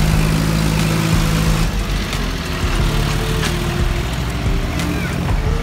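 Motor vehicle engine idling with a steady low hum; the sound changes about a second and a half in.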